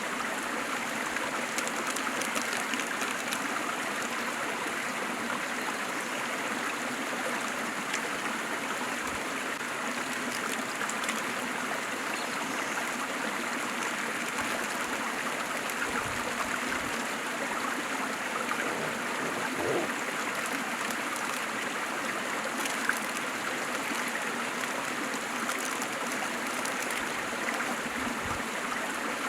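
Waterfall and stream water rushing steadily, an even splashing hiss.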